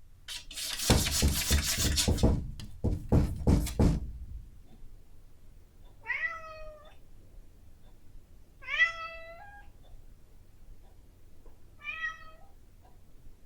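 A domestic cat scratches rapidly at a door for about four seconds, then meows three times, each meow about a second long, asking to be fed.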